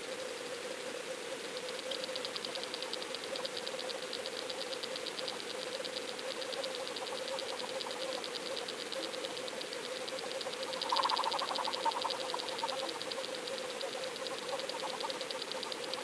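Underwater sound picked up by a GoFish Cam towed through the water behind a lure: a steady hum with rapid, even ticking, and a brief louder swell about eleven seconds in.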